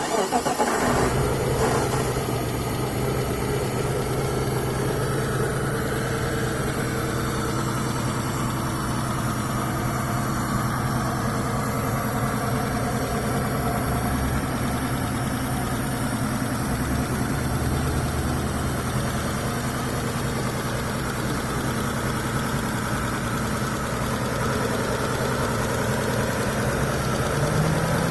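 Mitsubishi Galant V6 engine starting up and settling into a steady idle, test-run just after new connecting-rod and main bearings were fitted. The idle speed rises slightly near the end.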